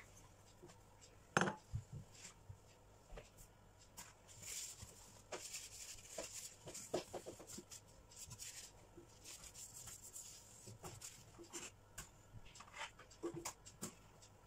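Faint kitchen handling noises: scattered light taps, clicks and rustles from sprinkling grated cheese and handling a glass baking dish on a countertop, with one sharper knock about a second and a half in.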